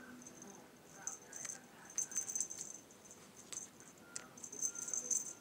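Light, high jingling rattle in scattered bursts, with a few sharp clicks, as a cat plays with a toy bow; the busiest stretches come about two seconds in and again near the end.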